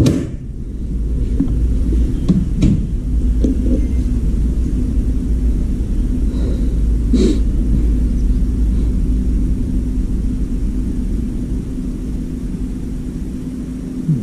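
Hitachi Heat Recycle washer-dryer running with a steady low hum and rumble. A knock comes at the start, another about two and a half seconds in, and a thud about seven seconds in.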